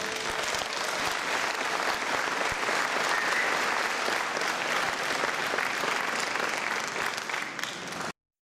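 Audience applauding steadily, cut off abruptly about eight seconds in.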